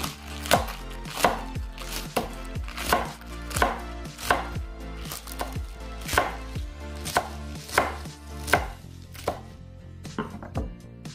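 A broad-bladed kitchen knife chops cavolo nero into thin strips on a wooden cutting board. The blade knocks the board in an even rhythm, roughly every two-thirds of a second, and the strokes grow fewer and softer near the end.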